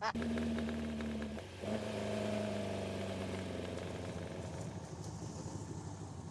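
Dune buggy engine running under throttle; about a second and a half in its note drops out briefly and then picks up again, the kind of hiccup the driver calls 'a little misfire moment'. After that the engine note slowly falls in pitch and fades.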